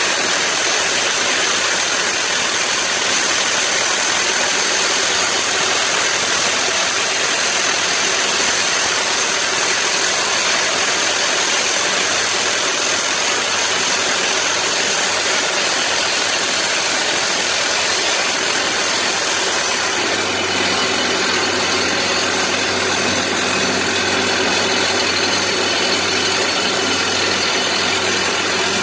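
Soosan hydraulic drill rig running continuously, a loud steady mechanical noise. About twenty seconds in the note changes and a steadier low hum joins it.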